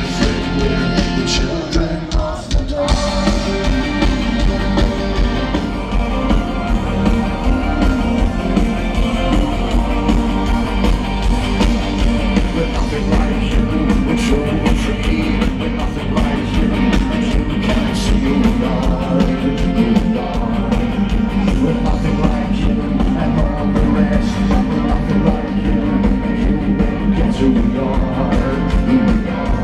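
A rock band playing live over a festival PA, with singing and a heavy bass, continuous and loud.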